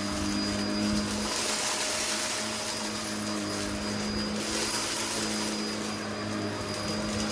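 Vacmaster Captura vacuum cleaner running steadily: a motor hum with a thin high whine, and airflow hiss that swells and eases every couple of seconds.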